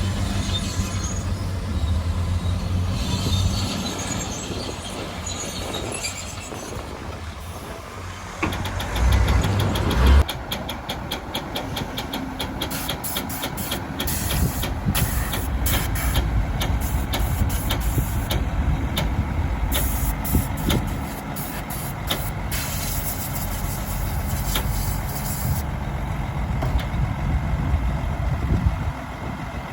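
Heavy diesel construction machinery running, with a louder surge about a third of the way in. After the surge comes a long run of rapid clicks and clanks over a low engine rumble.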